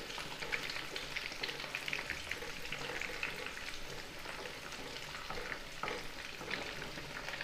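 Cornflour-batter-coated puffed-rice and potato cutlets deep-frying in hot oil in a kadhai at medium heat: a steady crackling sizzle full of small pops. A wooden spatula stirs the oil, adding a few sharper ticks past the middle.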